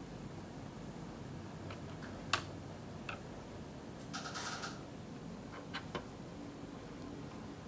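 Light clicks and taps of small objects handled on a desk, the sharpest about two seconds in, with a brief scratchy rustle near the middle and two more clicks a little later, over a steady low hum.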